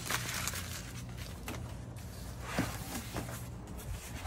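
A cardboard shipping box being torn open by hand, its flaps rustling and scraping with scattered short crackles. A steady low hum runs underneath.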